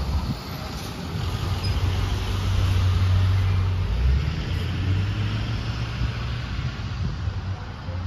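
A motor vehicle's engine running nearby, a low rumble that swells to its loudest about three seconds in and then eases off.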